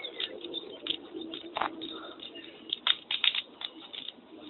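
Wood bonfire crackling with sharp, irregular pops, which come in a quick cluster about three seconds in.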